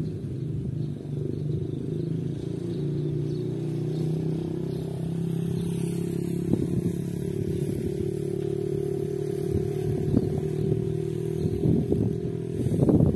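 A small engine running steadily, with slight shifts in pitch. Music begins near the end.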